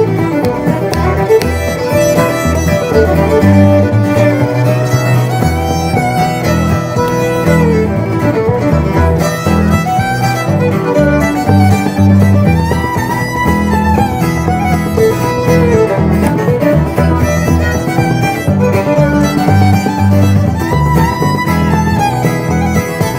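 Background music with fiddle and guitar over a steady beat and bass line.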